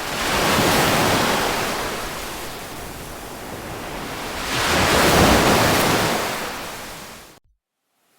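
Ocean waves breaking and washing in: two swells of surf, one about a second in and a louder one about five seconds in, each fading away. It cuts to silence for the last second or so.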